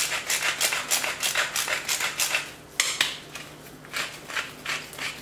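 Wooden pepper mill being twisted by hand, grinding pepper in a quick run of short rasps, about three a second, with a short break about halfway through before it starts again. The mill is giving a small problem.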